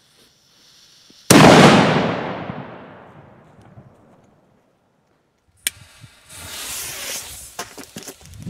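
A firecracker goes off with one very loud bang a little over a second in, its echo dying away over about two seconds. Near the end comes a stretch of hissing with a few sharp clicks.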